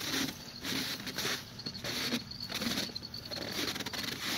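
Footsteps crunching on packed snow, a steady walking rhythm of about two steps a second.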